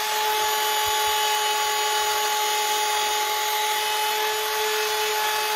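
Handheld rotary multitool fitted with a wire brush, running at a steady speed with a steady whine.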